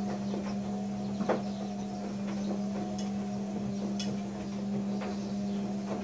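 A steady low mechanical hum, with scattered light clicks and ticks over it.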